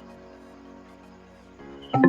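Soft background music with sustained, held tones.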